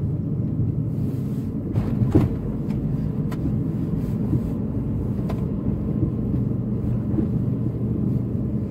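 A car driving along a city road, heard from inside its cabin: a steady low rumble of engine and tyre noise. A few faint clicks sound inside the car.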